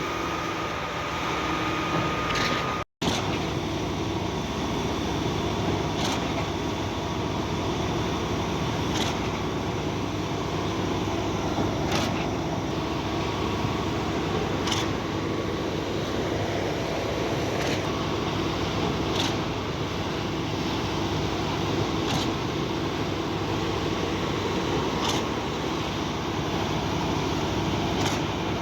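Cifa K41XRZ truck-mounted concrete pump running, its engine droning steadily under a sharp knock about every three seconds, the stroke changeover of the pumping cylinders as concrete is pumped.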